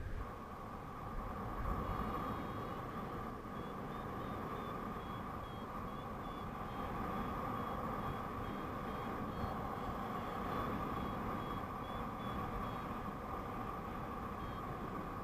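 Paraglider variometer beeping in short high pips, a few a second with slight shifts in pitch, over steady wind rushing across the microphone in flight. Beeping like this is the variometer's climb tone, signalling that the glider is rising in lift.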